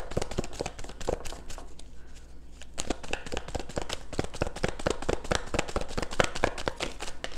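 A deck of tarot cards being shuffled by hand: a continuous run of quick, irregular card clicks and flicks.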